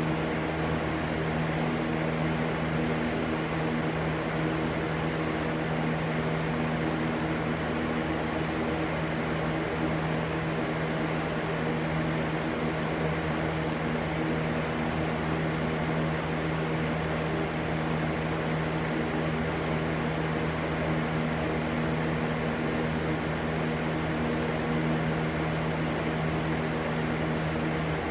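Continuous white-noise ambience: an even, unchanging rush with a steady low hum underneath.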